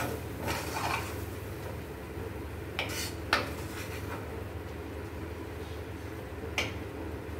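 Metal spatula stirring in a kadai, scraping and clinking against the pan a few times: about half a second in, around three seconds in and near the end. A steady low hum runs underneath.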